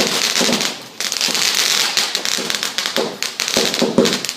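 Fireworks going off in quick succession: a dense crackling with louder bangs among it. The crackling dies down just before a second burst starts about a second in.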